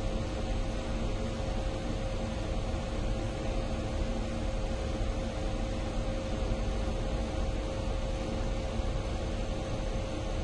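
Ceiling fan running steadily: a constant whoosh of moving air with a low rumble and a steady motor hum.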